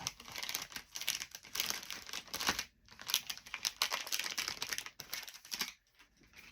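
Crinkly wrapping being handled and rustled, in two long stretches of dense crackling with a short pause between them.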